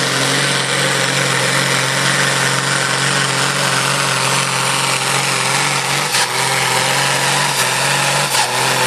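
Diesel engine of a supersport-class pulling tractor running at full throttle under heavy load as it drags the pulling sled, holding a steady pitch.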